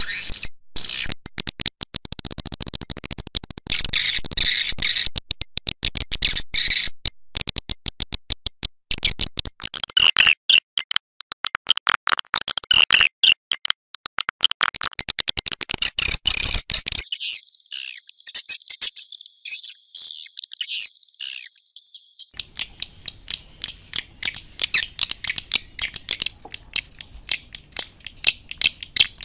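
Swiftlet lure recording for a bird house: dense, rapid, high-pitched chirping and clicking twitters of edible-nest swiftlets, the outdoor calling sound used to attract swiftlets to roost and nest.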